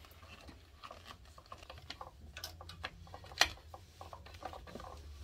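Small plastic clicks and taps from handling a water purifier filter cartridge and fitting a plastic filter wrench to it, with one sharper click about three and a half seconds in.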